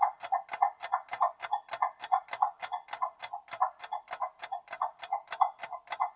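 Quiz countdown-timer sound effect: a clock ticking steadily, about four ticks a second.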